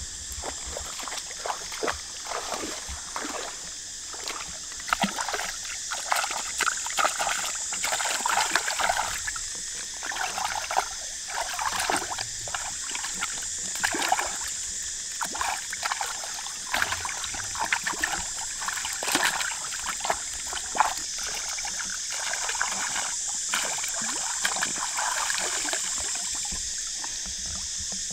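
Water splashing and sloshing in short, irregular bursts, with a steady high hiss behind it.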